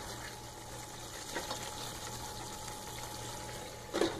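Spice masala with a lot of water in it bubbling steadily in a kadai on high heat. Near the end comes a short clatter as the glass lid with its steel knob is set back on the pan.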